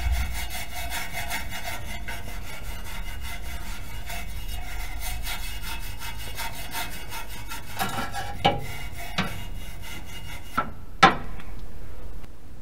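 Rapid, continuous scraping and rubbing strokes by hand on a rusted exhaust muffler pipe, cleaning the metal around a small burnt-through hole before it is patched. Near the end the scraping stops and a few sharp knocks follow, the loudest about eleven seconds in.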